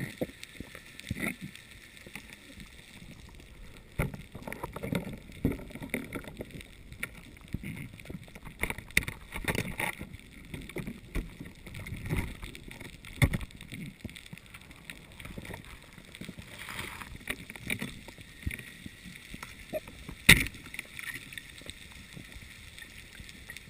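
Underwater sound picked up through a camera housing: a muffled water hiss broken by irregular knocks and clunks as the speared fish and spear line are handled, with one sharp loud knock about twenty seconds in.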